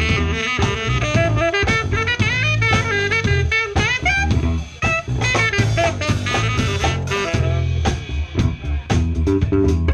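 Live jazz-funk band playing: a fast, winding saxophone line over drum kit, bass and guitar.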